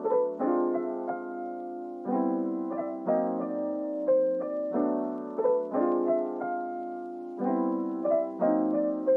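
Background music: a soft, gentle piano melody over held chords.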